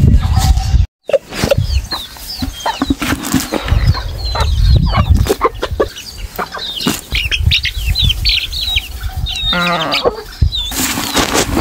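A flock of chickens with young chicks: many short, rising, high peeps from the chicks and clucking from the hens, with one louder, longer hen call near the end.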